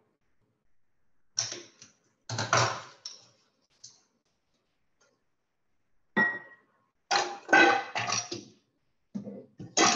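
Intermittent kitchen handling noise: short knocks and clatters of lemons, a knife and a cutting board on the counter, coming in irregular bursts with a quiet gap in the middle.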